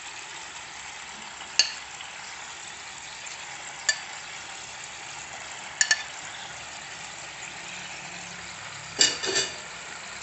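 Teriyaki sauce sizzling and bubbling in a frying pan as pieces of fried salmon are laid in with a spatula. Sharp clacks of the spatula come every couple of seconds, with a louder quick cluster near the end.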